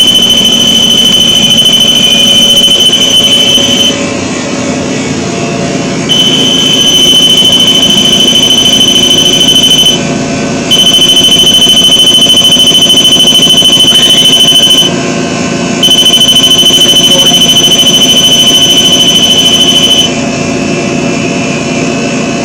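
A shrill, steady electronic alarm tone from a small battery device, sounding four times for about four seconds each with short gaps between.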